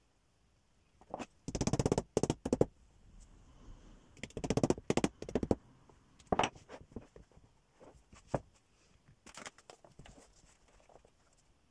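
Short bursts of scratchy rubbing as a felt hat body is worked down over a wooden hat block, with a few single knocks in between.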